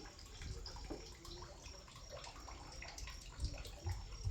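Faint trickling and dripping water, a quiet patter of many small drips, with a low rumble rising near the end.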